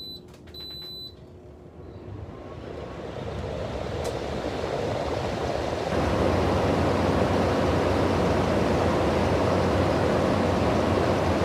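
Two short electronic beeps from a Frigidaire window air conditioner's controls, then its blower fan spinning up into a steady rush of air with a low hum, growing louder over the first few seconds and stepping up again about six seconds in.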